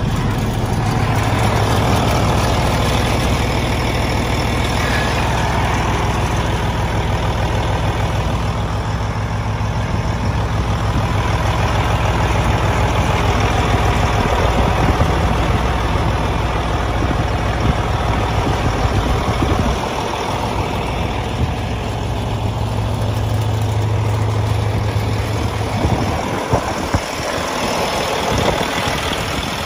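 Cat 980K wheel loader's C13 diesel engine idling steadily.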